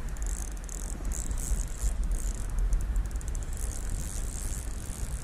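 Fishing reel being wound in to retrieve a lure: a high whirr with a fast run of fine clicks, heard over wind rumbling on the microphone.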